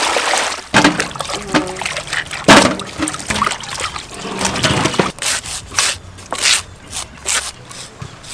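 Water poured and trickling over boiled corn cobs in a metal bowl, with a few louder splashes. After about five seconds it gives way to a run of short scrapes, about two a second, as knives cut the kernels off the cobs onto a metal tray.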